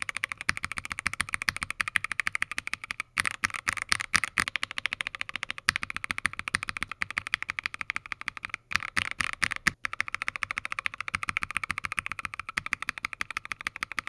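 Fast typing on a mechanical keyboard with Gateron CJ linear switches, first stock and then lubed and filmed: a dense, continuous run of keystroke clacks, with a few brief breaks between takes.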